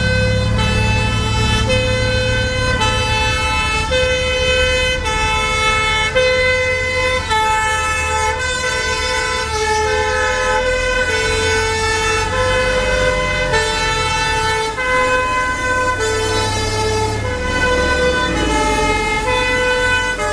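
Two-tone sirens on fire-service vehicles sounding the European "pin-pon": a high and a low note alternate, each about half a second, with more than one siren overlapping at slightly different pitches. Vehicle engines run underneath.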